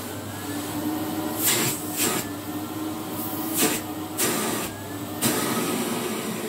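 Philips Computer Control cylinder vacuum cleaner running steadily, with a low motor hum and five brief rushes of air over its first five seconds. The bag is not sealing properly and the machine has an air leak the owner can hear.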